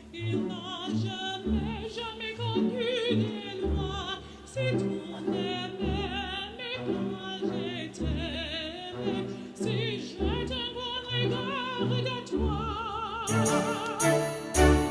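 Background music: a woman singing opera with strong vibrato over an orchestra.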